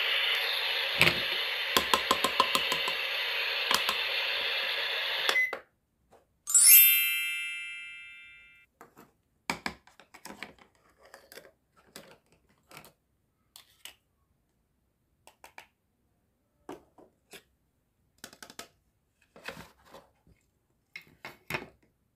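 A steady frying sizzle with a few plastic clicks over it, which stops suddenly about five and a half seconds in. Then a single bright ding that rings out for about two seconds, followed by scattered light clicks and taps of plastic toy cookware being handled.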